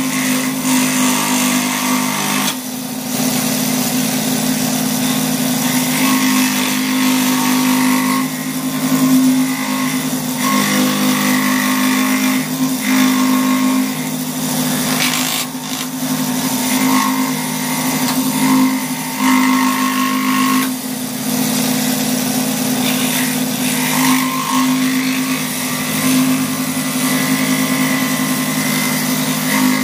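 Electric scroll saw running, its reciprocating blade cutting through a mulberry wood blank: a steady motor hum with a rasping cutting noise above it that rises and falls as the wood is fed and turned.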